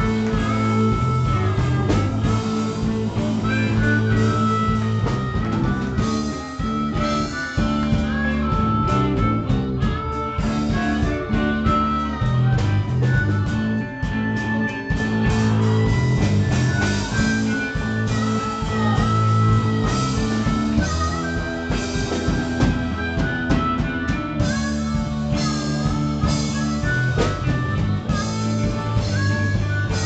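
Live blues-rock band playing an instrumental stretch: electric guitar lead lines with held, bending notes over bass and a drum kit.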